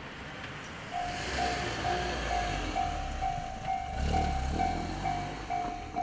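Japanese level-crossing warning bell starting up about a second in, an electronic ding repeating a little over twice a second. It signals another train approaching. A car drives past and over the crossing, its rumble loudest about four seconds in.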